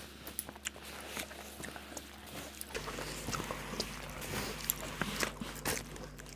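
Crisp fuchka (pani puri) shells crackling as fingers pick them up and poke holes in them, mixed with chewing: a scatter of small sharp clicks and crunches.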